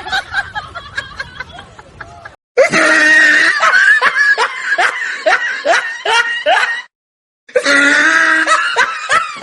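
A person laughing hard in a long cackle of quick, repeated rising 'ha' pulses, broken by two short pauses, like a comedy laugh sound effect.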